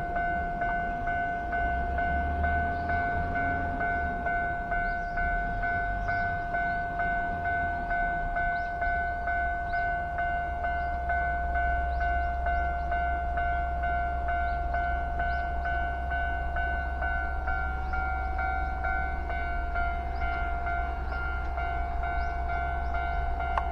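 Japanese railway level-crossing warning bell ringing continuously in a fast, even, high-pitched clang, with a train's low rumble growing underneath from about ten seconds in.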